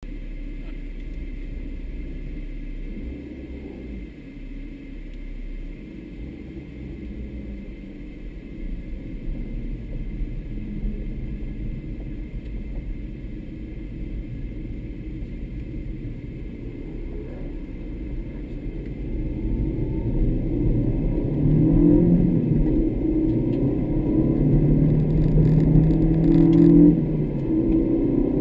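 Car engine and road noise heard from inside the cabin: a low steady run at first, then from about two-thirds of the way in the engine accelerates with its revs climbing in several steps and getting louder.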